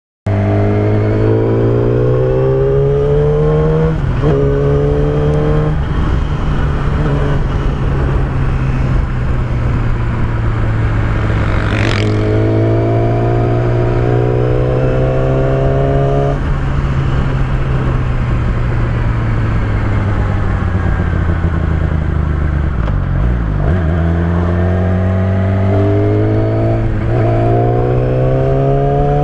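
Yamaha YZF-R6 inline-four sport bike with a Yoshimura aftermarket exhaust being ridden hard. The engine note climbs and drops at each upshift, eases off and falls in the middle, then climbs through the gears again near the end. There is one sharp click about twelve seconds in.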